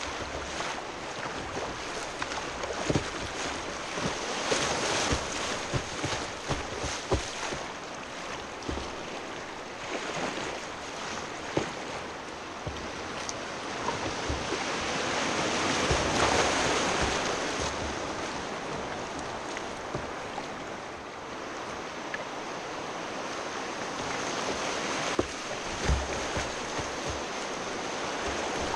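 Rushing whitewater rapids heard close up from a kayak running them, with frequent sharp splashes and knocks of water. The rush swells loudest about halfway through.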